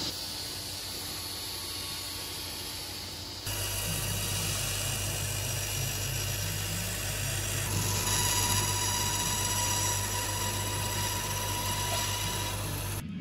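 Woodworking power tool running steadily, heard in short clips joined by abrupt cuts about three and a half and eight seconds in.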